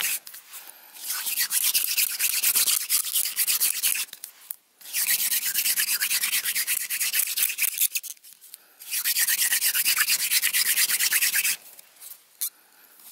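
Hand-drill fire friction: a wooden spindle spun back and forth between the palms, grinding in the notch of a wooden hearth board. It comes in three runs of a few seconds each with short pauses between, then stops near the end. The board is too damp for an ember, so it gives only smoke.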